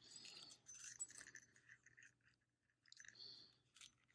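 Near silence with faint handling noises: a few small clicks and soft rustles of small lock parts and a paper napkin being handled.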